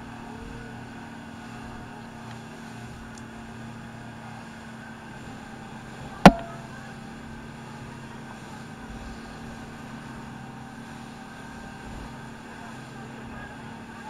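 Speedboat engine running steadily under way, with water rushing and spraying along the hull. A single sharp knock about six seconds in is the loudest sound.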